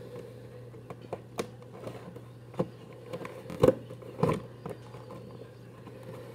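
Scissors cutting into a cardboard toy box: a string of sharp, irregular snips and scrapes, the loudest about two thirds of the way through, over a steady low hum.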